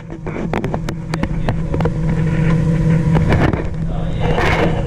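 Steady low mechanical hum under frequent short knocks and scrapes, as a camera is handled and bumped inside a steel hull cavity.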